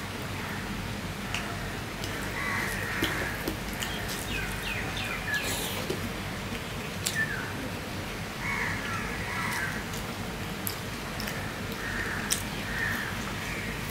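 Fingers mixing rice and small fish curry on a stainless steel plate, with scattered sharp clicks and chewing. A bird caws a few times in the background.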